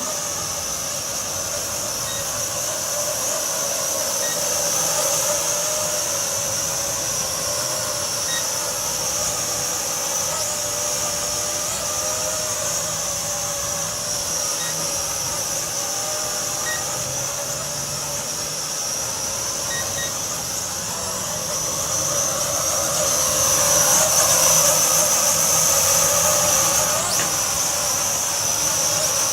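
LBLA Aurora folding quadcopter's motors and propellers whining in flight, a steady high buzz that grows louder with its pitch sliding up and down about two-thirds of the way through.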